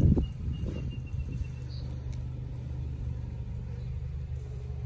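A brief knock of wood at the hive entrance as the entrance piece is handled, then a steady low rumble.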